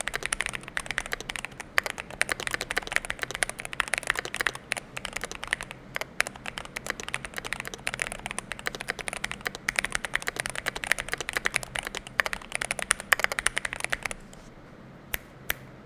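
Fast typing on a Keychron Q1 Pro mechanical keyboard with Gateron Baby Kangaroo V2 tactile switches and PBT keycaps, tape-modded and fitted with its acoustic mod kit. The typing stops about two seconds before the end, followed by two single key presses.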